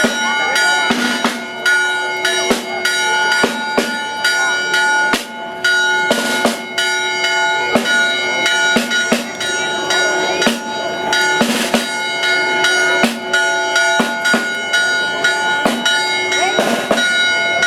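Church bells ringing continuously, struck many times a second or two apart, their tones hanging on between strikes. Faint crowd voices underneath.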